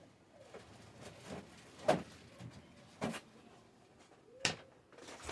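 Kitchen items being handled: a few sharp knocks and clacks. Three louder ones come about a second apart, with fainter taps between them.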